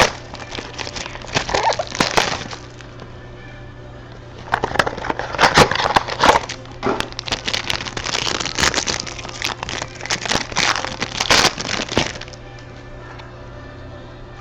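Packaging of a trading-card mini box being opened: crackling, crinkling and tearing of wrapper and cardboard, in two spells with a lull between, over a steady low hum.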